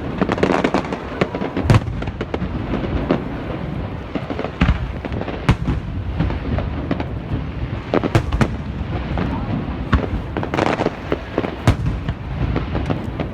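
Fireworks display: aerial shells bursting in irregular bangs, a few of them sharper and louder, over a continuous rumble and crackle.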